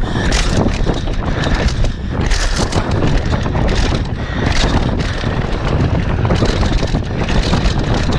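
Wind buffeting the microphone of a camera on a downhill mountain bike at speed, over the steady rumble of knobby tyres on a dirt trail, with the bike rattling and knocking as it runs over roots and bumps.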